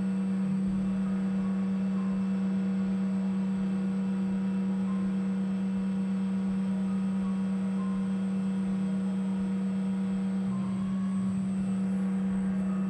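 CNC lathe running a programmed turning cycle, giving a loud, steady low hum with fainter higher tones above it.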